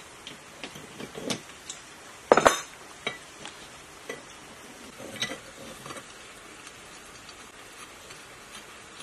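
Metal clinks and knocks of a steel spanner on the impeller nut of a three-phase sewage pump held in a vise. The loudest is a short clatter about two seconds in, with a few lighter clicks around it and little sound in the last few seconds.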